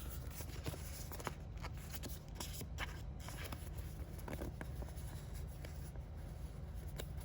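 Pokémon trading cards being handled: faint light rustling with scattered small clicks and taps, over a steady low hum.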